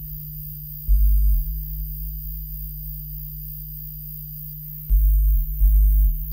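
Electronic music: a steady low drone with short, deep bass pulses, one about a second in and two close together near the end.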